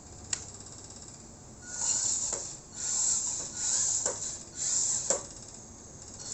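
Small electric motor of a homemade sheet-metal RC dump truck whirring in four short bursts of about half a second each, with a sharp click just before and a few metallic clicks among them.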